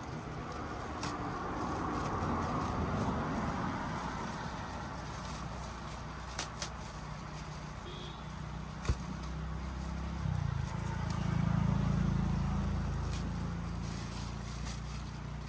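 A low motor hum running steadily, growing louder about ten seconds in, with a few sharp clicks along the way.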